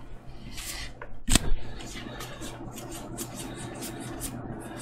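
Magic: The Gathering trading cards being handled: a sharp rustle about a second in, then a quick run of soft flicks as cards are flipped through one by one.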